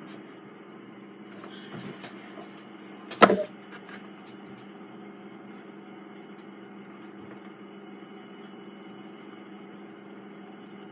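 Handling noises: a little rustling, then one sharp knock about three seconds in, over a steady background hum.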